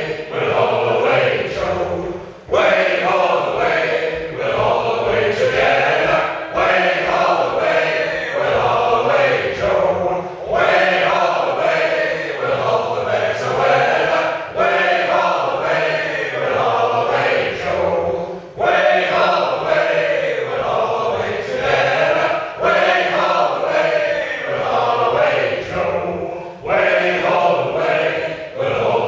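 A group of men singing a sea shanty unaccompanied, in sung lines of about four seconds each with a short breath between them.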